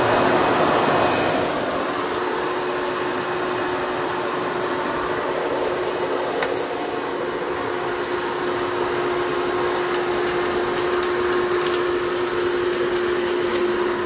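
Hoover Bagless Twin Chamber upright vacuum cleaner running steadily while it is pushed over carpet, picking up shredded paper, with a constant motor tone under the rush of air.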